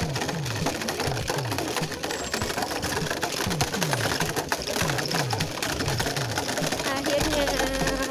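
A bicycle rattling and jolting over a cobblestone path, heard from a phone mounted on the handlebars that shakes with every stone, along with a low falling tone repeating about twice a second. Music with steady held tones comes in near the end.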